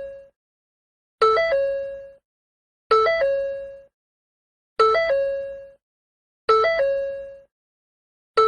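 Ford car door chime repeating about every two seconds. Each chime is a quick three-note figure, a low note, a step up, then a held middle note, which rings and fades before the next one starts.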